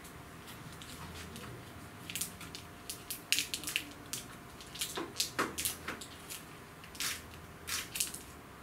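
Irregular light clicks and taps from an HP Spectre x360 convertible laptop being handled, coming in small clusters from about two seconds in.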